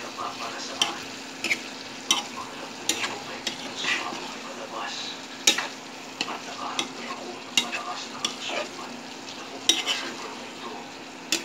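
Stir-frying in a pan: a steady sizzle with a spatula scraping and clinking against the pan at irregular moments, a few strokes sharper and louder than the rest.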